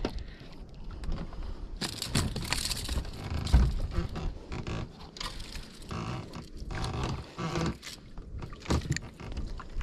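Irregular handling noise in a small wooden outrigger boat: knocks, rubbing and rustles as the freshly landed fish and the camera are handled, with one heavy thump about three and a half seconds in.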